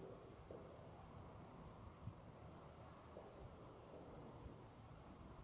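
Near silence: room tone with faint insects chirring, and a few soft ticks of a marker on a whiteboard.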